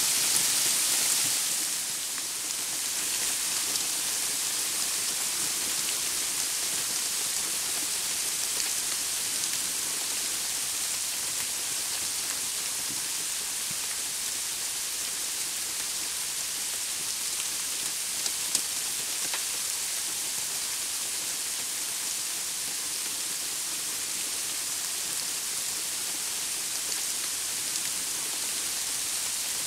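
Cold rain mixed with sleet falling steadily on the woodland, an even hiss with a few louder drops about two-thirds of the way through. The hiss softens slightly about two seconds in.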